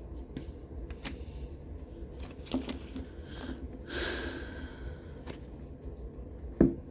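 Tarot cards being handled: scattered light clicks and taps, a short breathy sound about four seconds in, and a sharper card snap near the end as a card is turned over and laid down.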